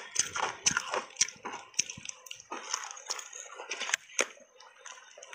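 Crunchy reshaped ice coated in matcha powder being bitten and chewed in big bites: a run of sharp, irregular crunches and cracks, the loudest about four seconds in.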